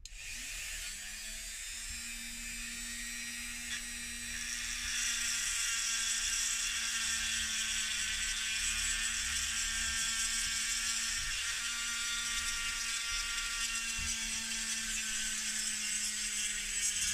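130-watt Mac Allister MSRT 130 rotary tool switched on and running at a steady speed through its flexible shaft, a high-pitched whine over a low hum. It grows louder about five seconds in, as its orange bit is held against a metal surface.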